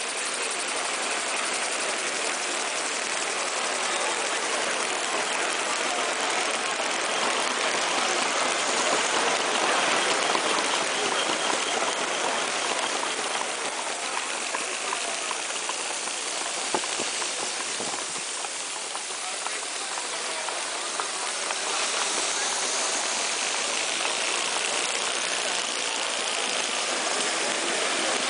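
Several small model steam engines running on compressed air, their exhaust making a steady hiss with a busy running clatter.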